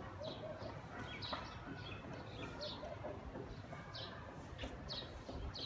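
Small birds chirping in short, high calls, about two a second with a brief pause midway, over a steady outdoor background rush.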